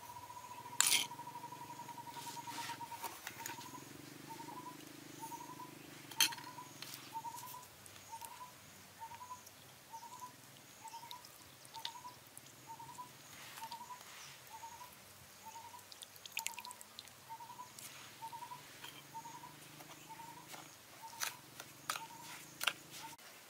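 Seasonings poured into a glass bowl and stirred with a spoon, with scattered light clicks and clinks against the glass. Behind them a thin high trill runs for about three seconds, then breaks into a short high note repeated about one and a half times a second.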